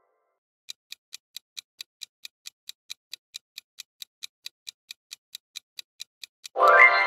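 Clock-like ticking sound effect, about four sharp ticks a second, counting off the thinking time. Near the end a loud, bright musical chime cuts in and is the loudest thing.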